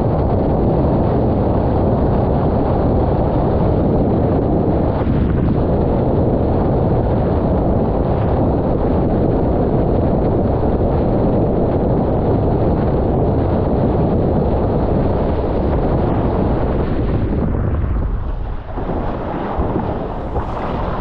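Strong wind buffeting the action camera's microphone, mixed with water rushing under a windsurf board planing over chop. It is a steady, loud rush that thins out and dips briefly near the end as the rig swings round in a turn.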